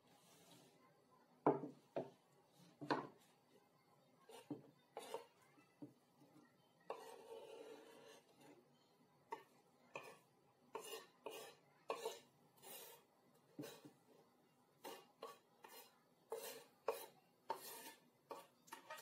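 Kitchen knife knocking and scraping on a wooden cutting board as diced red onion is swept into a glass bowl, with irregular taps and clinks of the blade against the board and the bowl, and one longer scrape about seven seconds in.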